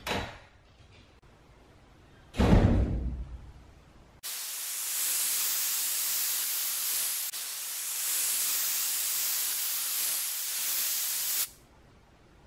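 A steady, even hiss of white noise lasting about seven seconds, starting and cutting off abruptly, laid over a fast-forwarded stretch as an editing sound effect. Before it, about two seconds in, a single loud thump fades over about a second.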